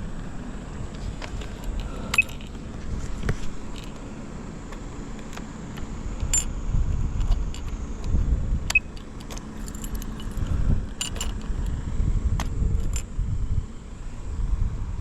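Honda Ape 100's small air-cooled single-cylinder four-stroke engine running, its low rumble swelling in uneven surges after a few seconds, with scattered sharp metallic clicks and jingles. The seller describes the engine as in good condition with no abnormal noises.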